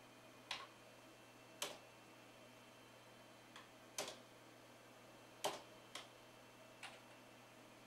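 Computer keyboard keys pressed one at a time while stepping through BIOS menus: seven short, sharp clicks at uneven intervals, two of them close together around four seconds in, over a faint steady hum.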